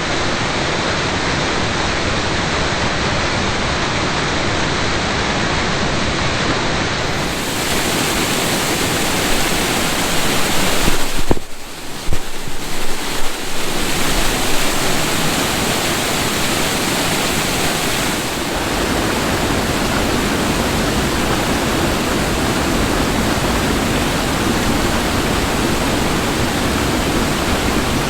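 Steady rushing of a large, fast waterfall. The flow is broken by an uneven stretch of louder and quieter moments about eleven to fourteen seconds in.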